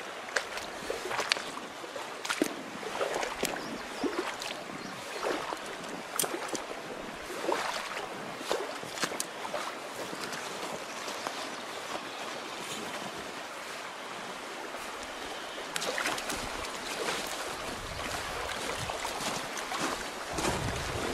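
Steady rush of a fast-flowing river, with irregular short splashes and knocks that are most frequent in the first half. From about three quarters of the way through, wind buffets the microphone.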